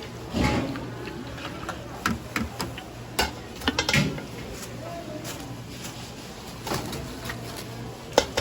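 Irregular clinks and knocks of kitchen utensils and dishes in a busy snack-shop kitchen, over a steady low hum and brief snatches of voices. The sharpest knocks fall about 3 to 4 seconds in and again near the end.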